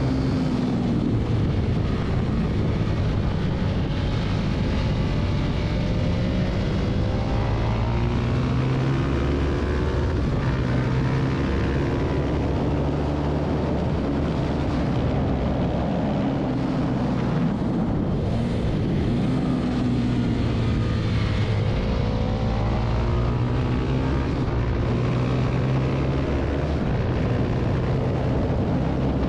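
Husqvarna 701 supermoto's single-cylinder engine being ridden hard on track. The revs climb and drop again and again through the gears, over a steady rush of noise.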